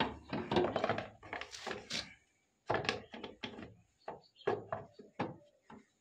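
Irregular plastic knocks, taps and rustles as a new paper air filter element is handled and pressed into a scooter's plastic air filter box, with the sharpest knock right at the start.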